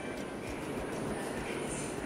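Onion-tomato masala frying in a nonstick pan with a steady sizzle, while a wooden spatula stirs it with soft scraping strokes.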